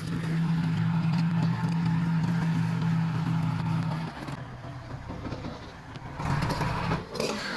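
An engine running steadily, dropping away about four seconds in, then rising briefly and louder about a second before the end.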